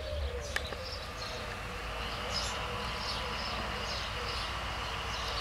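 Birds chirping repeatedly over the low, steady rumble of a distant Romanian LDH diesel-hydraulic locomotive approaching, with a faint steady whine coming in about two seconds in.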